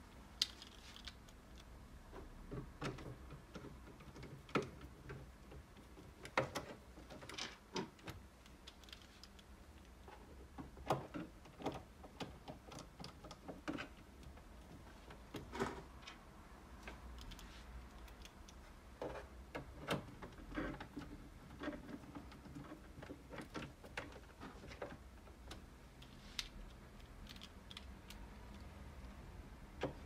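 Irregular small clicks and taps of a screwdriver turning the screws that fix the stand's metal bracket to the back of a Dell OptiPlex 3011 all-in-one PC, with knocks of the stand and tool being handled.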